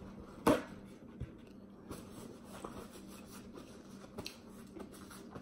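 A sheet of paper towel ripped off the roll with one sharp tear about half a second in, then soft crinkling and rustling of the paper as it is folded and rubbed over the hands.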